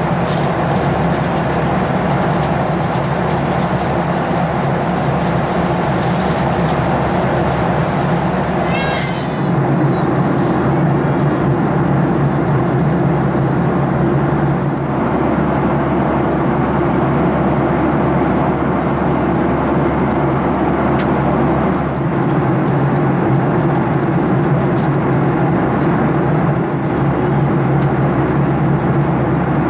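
Steady cabin noise of a Boeing 737-800 in flight: the drone of its CFM56-7B engines and the rush of air, with a constant low hum. About nine seconds in, a brief high-pitched rising squeak sounds over it.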